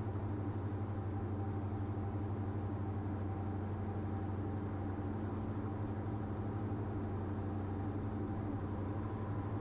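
Cabin drone of a Diamond DA42's twin engines and propellers in flight, a steady low hum holding an even approach power while descending on the glide slope.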